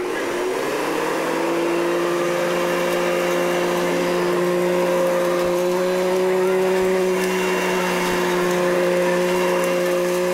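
Upright vacuum cleaner just switched on, its motor pitch rising over the first second, then running steadily with a hum and hiss.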